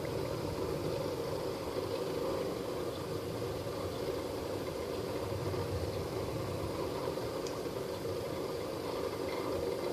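Steady mechanical hum, even throughout, with no distinct strokes standing out.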